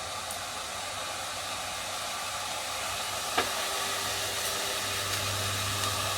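MacBook Air 11 cooling fan spinning on a freshly powered logic board, a steady whir that grows slightly louder, with one short click about three seconds in.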